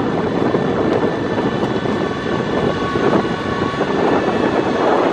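Pier train running along the pier, a steady rumble of wheels and motor.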